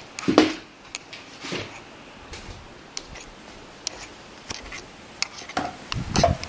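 Handling noise from a handheld camera being moved and gripped: a string of knocks, clicks and rubs, the loudest about half a second in and again near the end, over a faint steady hiss.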